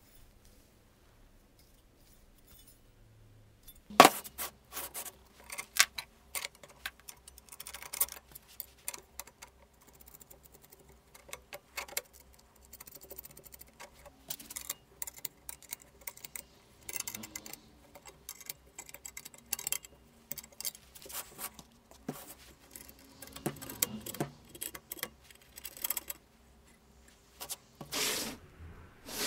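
Metal tools and parts being handled and set down, most likely as the knife grinding jig is got out and set up: a sharp knock about four seconds in, then a long run of irregular metallic clicks, clinks and rattles.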